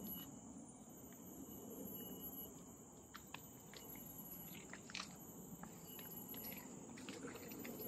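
Footsteps on a leaf-littered forest trail, faint crunches and scattered sharp clicks of dry leaves and twigs underfoot, over a steady high-pitched drone of tropical forest insects.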